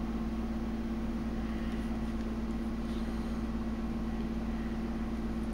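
A steady low hum with a constant pitch, with a few faint touches as a cardboard art box is handled and turned over.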